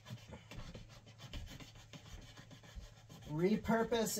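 Cardboard egg box being cut and handled: faint, irregular scratchy rasps and rubs. About three seconds in, a man's singing voice takes over.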